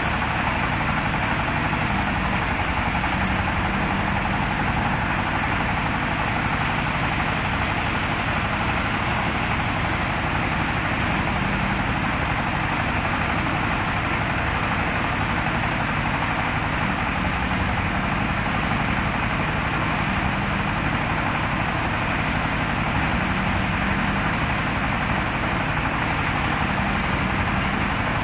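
Diesel-engined mobile rice thresher running steadily: an even engine drone under a dense, unbroken rush of noise from the machine.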